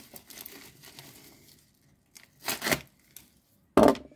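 A mail package being opened by hand: crinkling packaging, with two short, louder rips about two and a half and four seconds in.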